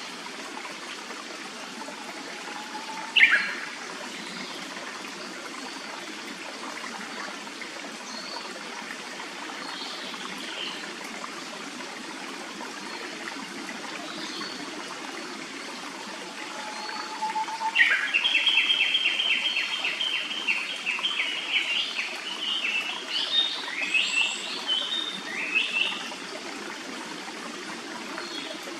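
Clear stream running steadily, with a Japanese paradise flycatcher calling over it: one sharp note about three seconds in, then from about eighteen seconds a longer song of fast repeated notes followed by several rising notes, lasting about eight seconds.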